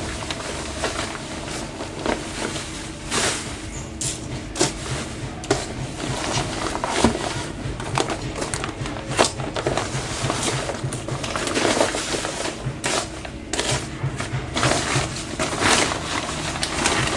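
Rustling with scattered sharp clicks and knocks as packaging is handled and opened during the unboxing of an air rifle.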